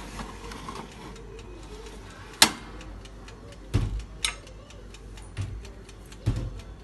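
Steady ticking of an OTG oven's clockwork timer, about three ticks a second, with a few louder knocks and clinks of the oven tray and skewers being handled.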